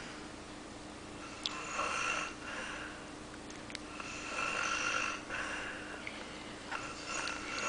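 A sleeping person snoring: three breathy, rasping snores about every three seconds.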